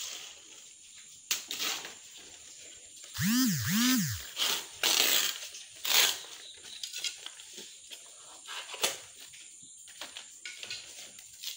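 Large banana leaves rustling and crinkling as they are picked up and laid down, with a few louder crackling bursts in the middle. Just before those, two short tones that each rise and fall.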